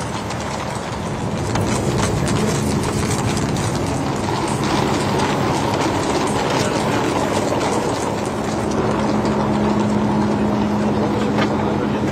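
A steady engine drone with a constant low hum, growing a little louder over the last few seconds, over a wash of outdoor noise.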